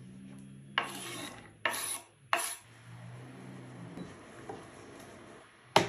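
Knife blade scraping diced zucchini across a wooden cutting board, three short rasping scrapes about a second in, then a faint steady hum; a sharp click near the end.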